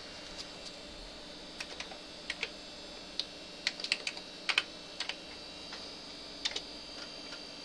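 Keystrokes on the Amiga 500's built-in keyboard: a run of uneven key clicks as a command is typed into the shell, over a steady high tone.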